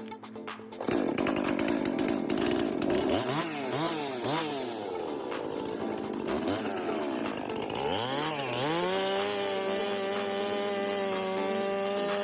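Gas chainsaw starting up loud about a second in, revved up and down several times, then held at steady high revs from about nine seconds in while cutting angled wedges from an old half-round board.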